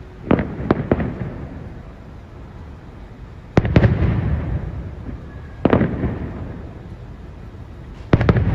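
Aerial fireworks shells bursting: three sharp booms in the first second, then a pair about three and a half seconds in, one more near six seconds and another cluster near the end, each trailing off in a fading rumble.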